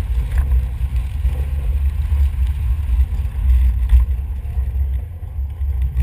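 Steady low rumble of a moving vehicle towing a sled, mixed with wind on the microphone.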